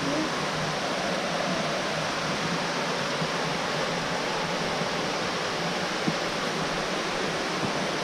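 Waterfall with plenty of water running over it, pouring into a pool: a steady rushing of falling water. A single faint tap sounds about six seconds in.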